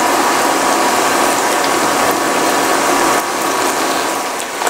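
Banana and fenugreek batter fritters deep-frying in hot oil in a pan: a steady, dense crackling sizzle.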